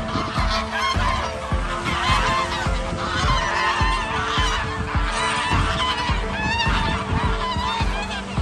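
A flock of white water birds calling over a lake, many short overlapping calls at once, over background music with a steady low beat.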